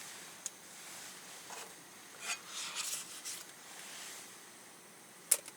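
Handling noises from camp cooking gear: a small click, a cluster of short scrapes and rustles about two seconds in, and one sharp click near the end.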